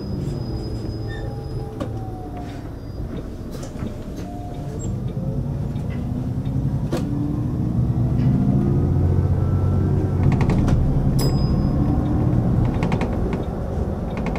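City bus engine and drivetrain heard from the driver's seat as the bus pulls away and accelerates. The pitch falls and climbs again through gear changes, growing louder about halfway through, with scattered clicks and rattles from the cabin.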